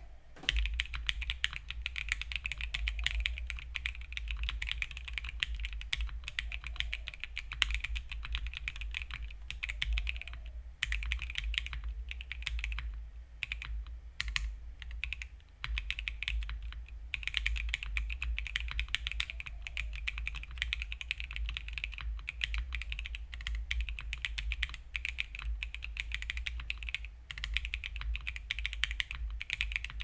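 Steady fast typing on a Monokei x TGR Tomo custom mechanical keyboard with Akko POM Silver linear switches lubed with 205g0, a polycarbonate plate, TX stabilizers and DMK keycaps: a quick run of key clacks with a few short pauses. A low steady hum sits underneath.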